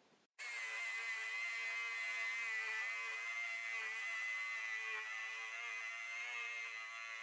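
HILTI SF 6H-A22 cordless hammer drill boring into a concrete block: a steady high-pitched buzz that starts abruptly a moment in and holds without a break.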